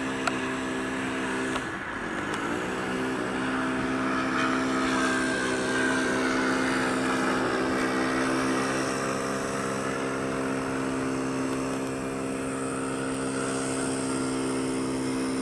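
Engine of a Zero warbird in flight, a steady drone. Its pitch dips briefly and recovers about two seconds in, and a higher tone slides down in pitch as the plane passes.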